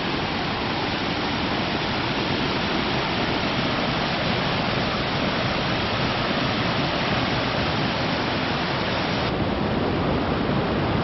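Roaring Fork, a mountain stream, rushing in a steady, even wash of water noise that turns slightly duller about nine seconds in.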